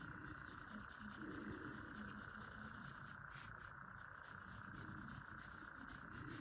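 Faint scratching and rubbing of a graphite pencil shading on paper, over a steady background hiss.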